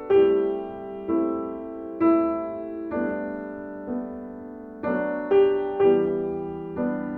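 Background piano music: notes struck about once a second, each ringing and fading away, coming a little quicker about five seconds in.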